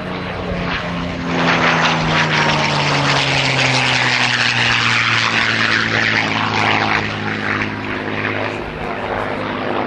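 P-51D Mustang's Packard V-1650 Merlin V-12 engine and propeller in a low, fast flyby: the engine note swells about a second in and drops steadily in pitch as the plane passes, then fades a little as it banks away.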